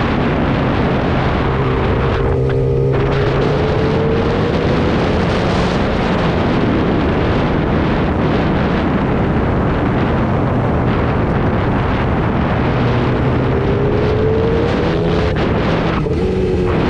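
Yamaha R6 sportbike at speed: heavy wind rushing over the microphone, with the inline-four engine running underneath. The engine's pitch climbs about two seconds in and again near the end.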